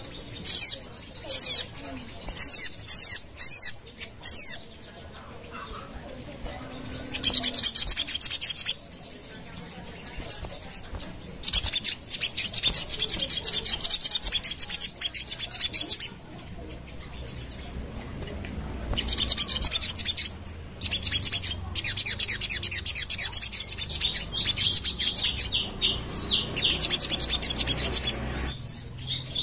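Caged sogon, a sunbird, singing fast, high-pitched chattering trills in repeated bursts. Short phrases come first, then longer runs of several seconds, with brief pauses between them.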